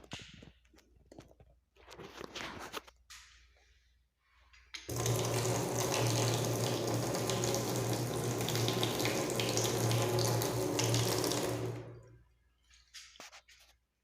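Water gushing from a newly installed bathtub mixer tap, turned on about five seconds in and shut off about seven seconds later, with a steady low hum under the rush. Faint knocks and handling sounds come before it.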